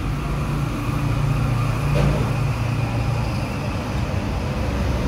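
An engine idling steadily, a continuous low hum, with a faint knock about two seconds in.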